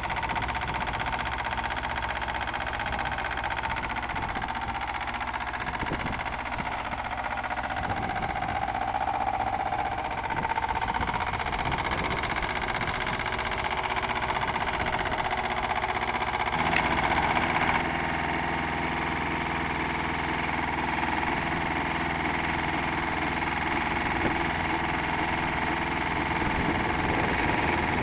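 Engine of a tracked portable drill rig running steadily under hydraulic load. About 17 seconds in, its note shifts and stays at the new pitch.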